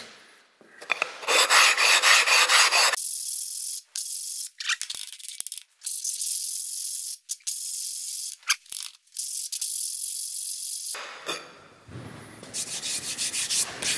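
An old dished bench stone being scrubbed back and forth on a Norton silicon carbide flattening stone: a gritty scraping rasp as the high spots are ground flat. It is loudest in the first few seconds and again near the end.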